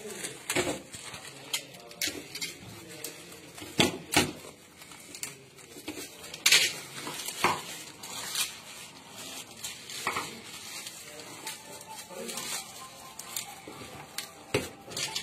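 Plastic packing wrap crinkling and tearing as it is cut and pulled off a sword's hilt, with irregular sharp clicks and clinks of metal fittings knocking together.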